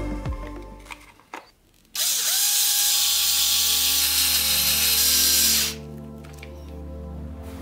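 Electric screwdriver whirring for about three and a half seconds as it drives in a steering-servo mounting screw, then stopping abruptly.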